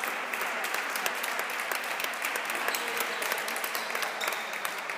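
Spectators applauding a won point in a table tennis doubles match: many hands clapping steadily.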